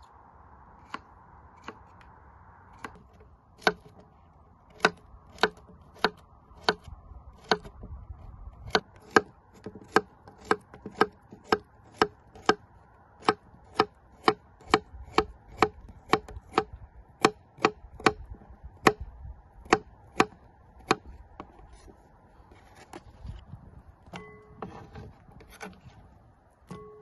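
Kitchen knife slicing a cucumber on a wooden cutting board: a steady run of sharp knocks, about two a second, as each cut strikes the board. The knocks stop about three-quarters of the way through.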